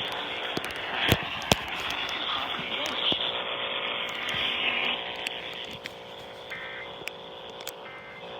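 Weather radio receiver static: a steady hiss with scattered crackles and clicks, heard through a narrow-band radio channel. In the second half come two short, faint warbling tone bursts.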